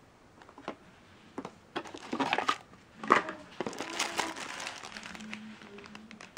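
Unboxing packaging being handled: a plastic-bagged accessory and the cardboard box inner tray crinkling and rustling as they are pulled out, in irregular bursts, with a sharp loud crackle about three seconds in.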